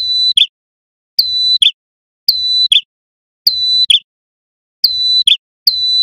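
Male ashy tailorbird (prenjak kepala merah) singing loudly. It repeats the same call about once a second, six times here. Each call is a sharp high note, a steady high whistle held for about half a second, and a short lower note at the end.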